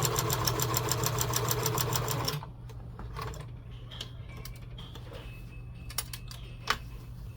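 Kenmore 158.13511 sewing machine stitching fast and evenly through heavy material with a size 18 needle and 92 heavy-duty polyester thread. It stops about two seconds in, leaving a low hum and a few light clicks.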